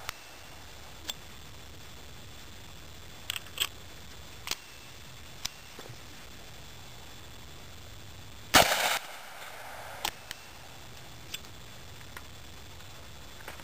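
One gunshot from a 45-410 single-shot pistol firing a .45 ACP round that sits in its .45 Colt chamber on an O-ring in the extractor groove, about eight and a half seconds in, with a short echo. Before and after the shot, small metallic clicks of the pistol being opened, loaded and closed.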